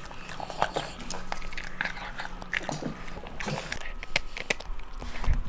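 Dog eating: wet food chewed from a steel bowl, then a chew stick gnawed, heard as an irregular run of small wet clicks and crunches.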